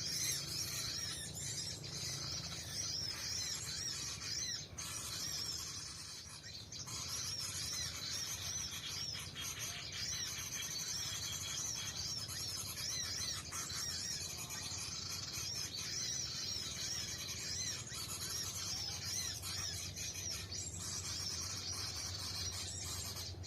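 High-pitched small-bird chirps, repeated in quick series almost without a break, over a low steady hum.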